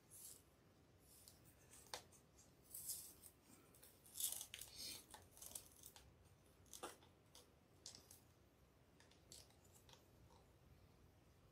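Faint, crinkly rustling of plastic deco mesh and ribbon as a bow is worked into a wreath by hand, with a couple of sharper clicks, one about two seconds in and another near seven seconds.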